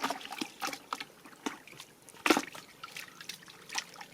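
Water splashing and dripping in irregular small bursts, with one louder splash a little past two seconds in.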